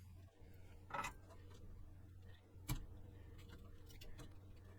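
Faint scattered clicks and a short scrape from a tool working at a monitor mounting bolt inside a vintage computer chassis, with one sharp click a little after halfway.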